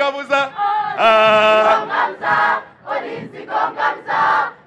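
A choir singing in short chanted phrases, with a loud held note about a second in.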